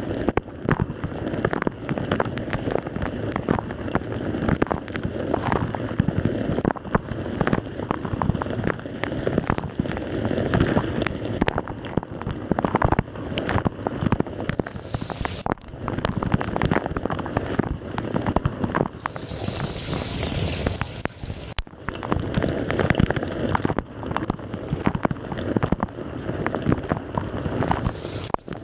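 Samsung dishwasher running its wash cycle: water jets spraying and splashing inside the tub, a dense, irregular spatter of drops hitting close by.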